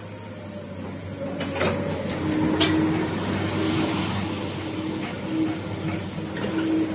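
Komatsu PC200-8 hydraulic excavator running: a steady diesel engine sound with an on-off hum from about two seconds in, a brief hiss about a second in and a few short clicks.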